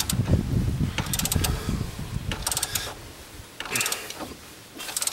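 Half-inch drive ratchet clicking in short bursts, about one burst a second, as it turns the screw of a C-frame ball joint press, pressing a new ball joint into the truck's control arm.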